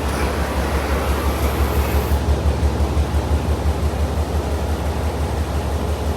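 CNC turret punch press running between punch strokes: a steady, fluttering low machine hum over a noisy background, with a faint high whine that stops about two seconds in.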